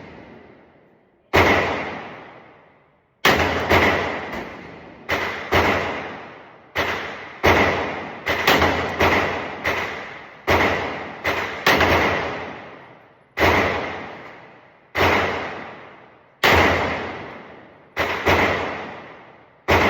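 A string of gunshots, roughly twenty at uneven intervals, some in quick pairs and some a second or more apart, each trailing off in a long echo.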